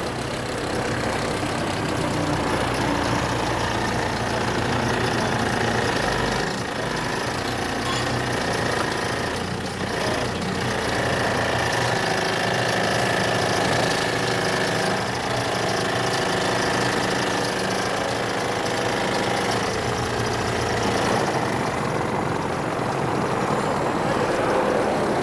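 Farm loader's engine running steadily as its hydraulic bale grab clamps and lifts a round bale of haylage.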